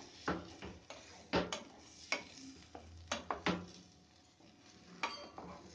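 Wooden spatula stirring chicken pieces and cream in a nonstick frying pan: soft scraping broken by about eight irregular sharp knocks of the spatula against the pan.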